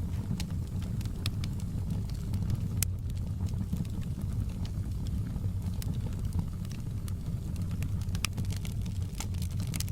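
Fireplace fire crackling: a steady low rumble of burning with irregular sharp pops and crackles, more frequent near the end.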